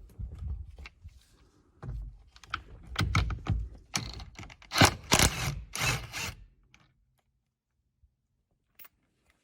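A socket wrench loosening the 19 mm steering-wheel nut: irregular metal clicks and clunks, loudest about five seconds in, then stopping well before the end.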